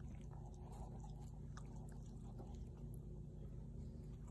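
Faint, scattered soft clicks and smacking mouth sounds from the mother dog and her puppies as she nuzzles them, over a low steady room hum.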